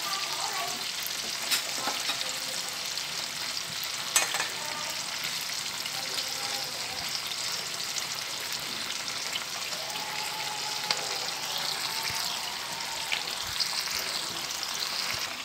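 Pomfret braising in a frying pan, the sauce sizzling and bubbling steadily, with a few small pops about a second and a half and four seconds in.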